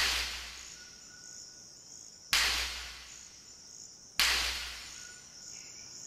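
Rubber tree seed pods bursting open on the branch: three sharp cracks about two seconds apart, each dying away over about a second.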